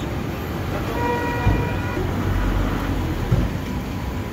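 Low, steady rumbling background noise at a roadside food stall, with a faint pitched tone about a second in that lasts about a second.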